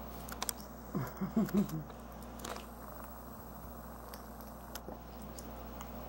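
African grey parrot's beak clicking and scraping in a plastic food cup as it picks at and tosses mango pieces, with scattered sharp clicks. About a second in, a few short low vocal sounds are the loudest part.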